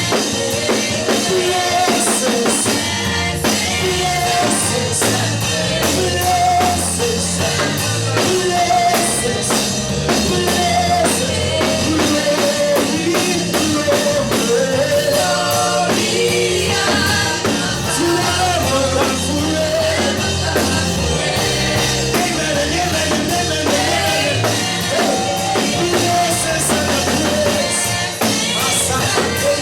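Live gospel worship music: a band with a drum kit playing steadily under singing voices.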